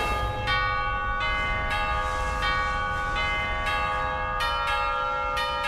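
Church bells ringing in a quick peal: about nine strikes at changing pitches, roughly two a second, each ringing on beneath the next.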